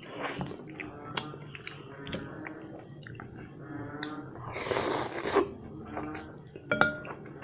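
A person eating instant noodles: wet chewing and small mouth clicks, with one loud slurp of a mouthful of noodles about four and a half seconds in.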